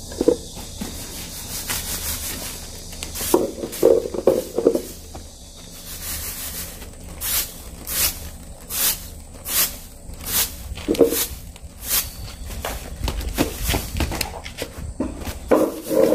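Sesame seeds being winnowed in a woven winnowing basket (키): the seeds swish and rattle with each toss, in strokes a little over one a second. The winnower herself calls her winnowing sound noisy but doing little to clear the chaff.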